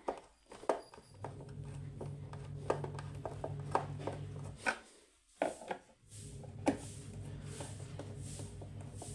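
Scattered clicks, knocks and scrapes of hands and a screwdriver working on a subwoofer cabinet while a woofer is being fitted, over a low steady hum that drops out for about a second around the middle.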